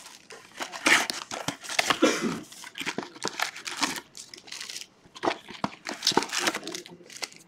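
Plastic shrink wrap crinkling and tearing as sealed trading-card boxes are unwrapped by hand, in irregular crackles.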